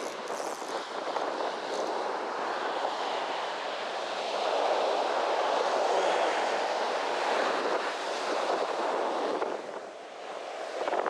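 Ocean surf washing up and draining back on a sandy beach: a steady rushing that swells about halfway through and eases near the end.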